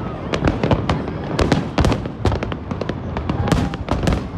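Fireworks display: aerial shells bursting in a rapid, continuous string of sharp bangs and crackles, several a second.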